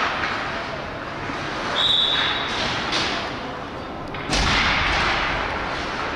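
Indoor ice hockey rink during youth game play: a short single whistle blast about two seconds in, then a sudden loud thump at the faceoff followed by about a second of scraping and clatter from sticks and skates on the ice.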